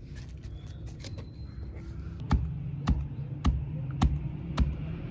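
Round stone pestle pounding whole wheat grains in a hollowed stone mortar to crack them: five even knocks about half a second apart, starting a little over two seconds in. Before that come light ticks of grains dropping into the stone hollow.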